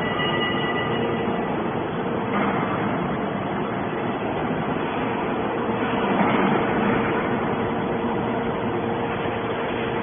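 Hydraulic scrap metal baler running: a steady mechanical hum with one constant tone, swelling slightly about six seconds in.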